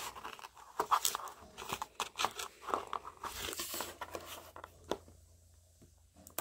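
Cardboard toy box being torn open by hand: irregular ripping and crackling of the paperboard for about four seconds, then it dies down to a few faint rustles.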